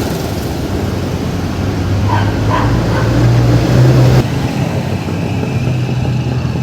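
A dog barks three times in short yelps about two to three seconds in, over the steady hum of street traffic. The traffic hum swells and then drops off sharply about four seconds in.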